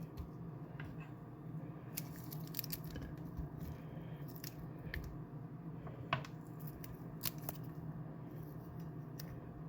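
Cut onion pieces being broken apart by hand and dropped into a slow cooker: scattered light crackles and squishes over a steady low hum.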